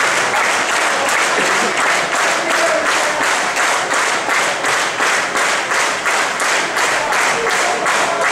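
Arena crowd clapping in unison in a steady rhythm, about three claps a second, with a few voices calling out over it.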